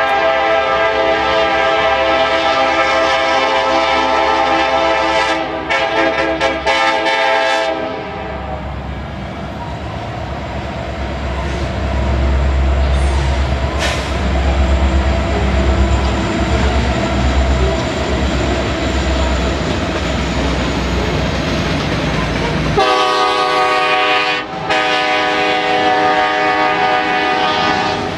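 Two Ferromex SD70-series diesel locomotives sounding their multi-note air horn for about eight seconds, then a heavy low rumble of the diesel engines and wheels as they pass. The horn sounds again for the last five seconds, with a brief break, as the freight cars roll by.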